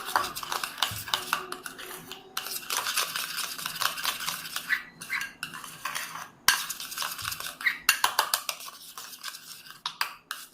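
A spoon beating quickly around a cup, clinking against its sides in a fast run of strokes with a few short pauses, as beaten instant coffee and sugar are thinned with a splash of milk.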